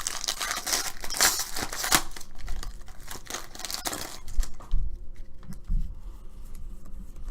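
Foil wrapper of a baseball card pack crinkling and tearing as it is opened by hand, busy for about four seconds, then quieter handling with a few soft bumps.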